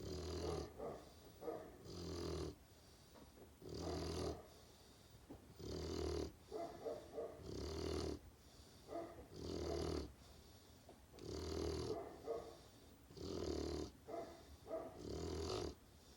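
Great Pyrenees puppy snoring, a regular snore about every two seconds with softer breath sounds between.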